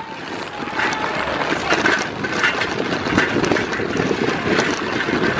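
Ice bike rolling along an ice track, a steady noisy rumble with scattered small clicks and knocks.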